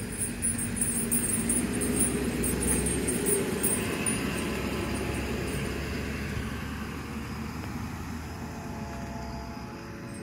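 An emergency vehicle drives past with its engine and tyres rumbling. It is loudest about two to three seconds in, then fades as it moves away, and no siren sounds.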